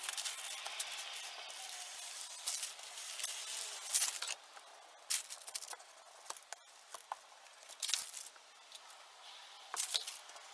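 Small hand roller pressed and rolled over parchment paper along birch veneer edge banding that has just been ironed on, with the paper rustling. A string of short scrapes and clicks comes through, about one every second or two.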